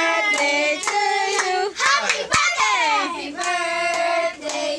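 Children singing together, with hand claps keeping time, and a single thump about halfway through.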